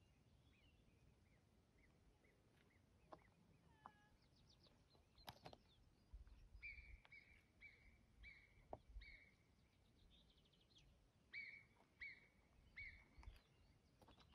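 Near silence of natural outdoor ambience with faint, distant high-pitched animal calls: a few scattered chirps, then two series of short whistled notes repeated a few times a second, about six and eleven seconds in.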